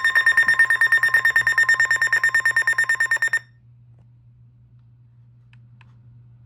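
Weather alert radio's alarm sounding, a loud, rapidly pulsing electronic beep that signals an incoming warning; it cuts off sharply about halfway through, leaving a faint steady hum and two faint clicks.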